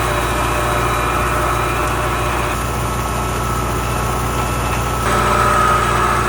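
Tractor's diesel engine running steadily; the sound changes abruptly about two and a half and five seconds in.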